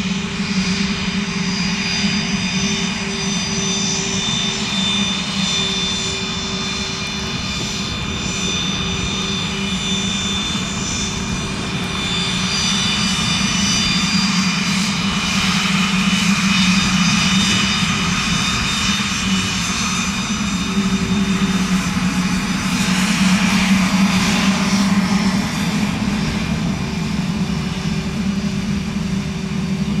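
Cessna CitationJet CJ3's twin Williams FJ44 turbofans running at taxi power, a steady jet whine with several high tones over a low hum. It grows louder as the jet passes close, loudest about halfway and again near three quarters of the way through.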